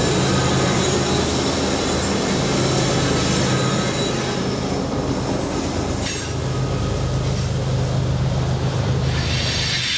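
Freight train passing close by: a BNSF diesel locomotive's steady engine drone as it goes past, then hopper cars rolling by with a continuous rumble of wheels on rail.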